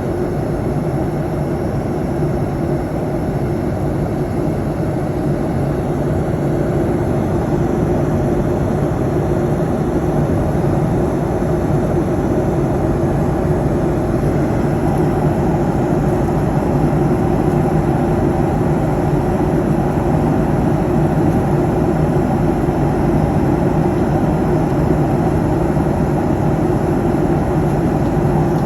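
Airliner cabin noise in cruise flight: a steady, unbroken rush of engines and airflow with a low hum.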